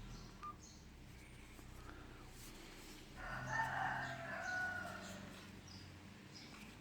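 A rooster crows once, about three seconds in, for about two seconds, trailing off downward at the end.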